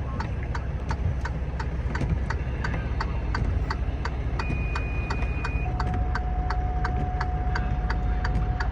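A vehicle's flasher relay ticking about three times a second over a steady engine idle. Two steady tones, one high and then a lower one, sound in the second half.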